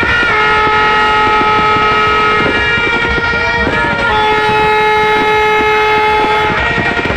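Horns sounding two long held blasts of about two and a half seconds each, over a steady crackle of fireworks bangs going off throughout.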